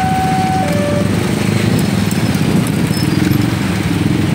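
Electronic warning alarm of a railway level crossing sounding two alternating tones, stepping between a higher and a lower pitch about once a second, then cutting off about a second in. Underneath, many motorcycle engines run in a dense low rumble.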